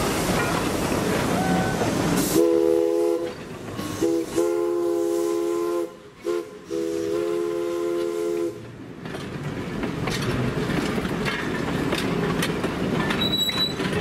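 Steam whistle of a 1916 two-truck Heisler locomotive, several notes sounding together as a chord, blown in about five blasts, short and long. Before and after it, the train's cars roll past with a steady rushing noise and wheel clicks.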